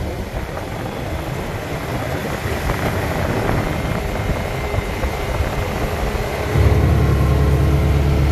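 Side-by-side UTV on the move: steady engine drone and wind noise, with a heavy low rumble coming in strongly near the end.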